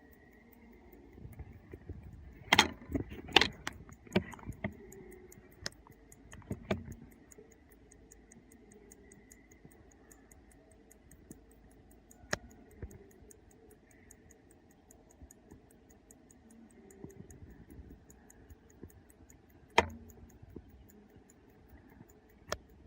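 Slava 11-jewel mechanical alarm clock ticking faintly and steadily, broken by sharp clicks and knocks from the clock being handled. The knocks cluster a few seconds in, with single ones later and near the end.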